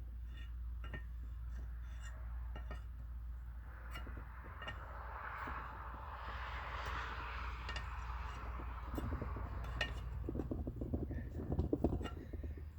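Irregular metallic clicks and clinks of hand tools working a broken stud out of a John Deere clutch housing, over a low steady hum.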